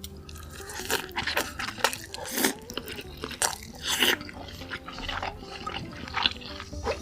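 Close-miked eating: wet chewing and mouth sounds with irregular crunching bites.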